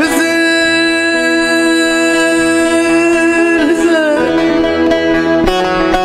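A woman singing a Turkish folk song (türkü), holding one long note that slides down about four seconds in and ends shortly after. Near the end a plucked-string accompaniment comes in with quick strokes.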